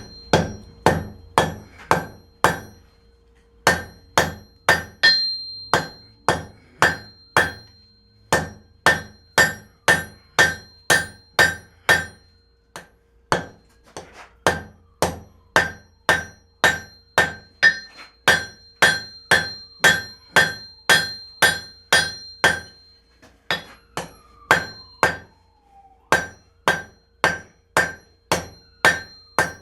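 Hand hammer forging a cut-off wrench on an anvil, drawing out the point and curving a karambit blade: steady runs of hammer blows, about two to three a second with short pauses between runs, each blow leaving a short metallic ring.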